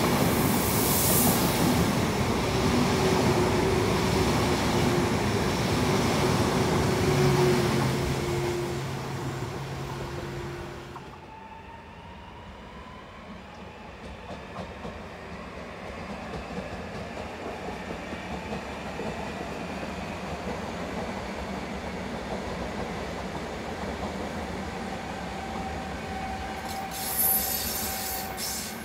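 A Frecciarossa 1000 high-speed electric train runs past along the platform track: loud wheel-and-rail noise with a low steady hum, which cuts off abruptly about eleven seconds in. A quieter rumble of a farther train follows, with a brief high wheel squeal near the end.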